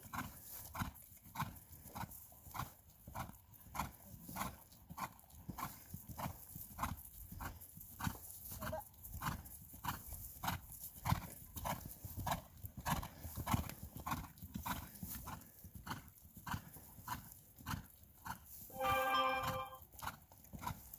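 A ridden horse's hooves striking grass turf at a trot, in a steady rhythm of about two to three beats a second. Near the end a brief steady-pitched call of just under a second sounds over the hoofbeats.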